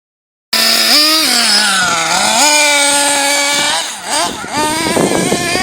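Small two-stroke nitro engine of a 1/8-scale RC buggy running at high revs, its pitch climbing and falling as the throttle is worked. About four seconds in the note drops and then climbs again, rougher and choppier.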